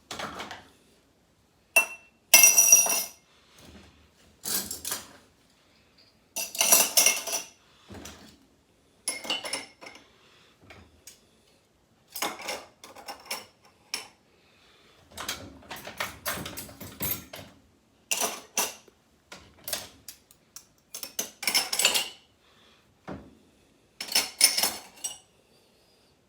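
Dishes and cutlery clinking and clattering as a dishwasher is unloaded and the clean items put away, in short spells of clatter with brief pauses between.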